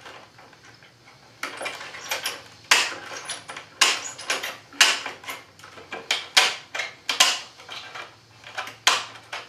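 Metal shears snipping through coated wire mesh screen: a run of sharp, short metallic cuts about two a second, starting about a second and a half in.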